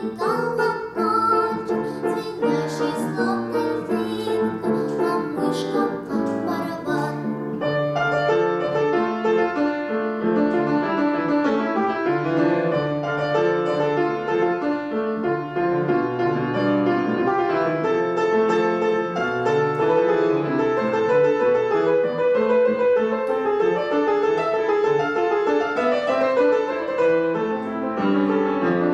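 A girl singing in academic style with upright piano accompaniment; about seven seconds in her voice stops and the piano plays on alone as an interlude.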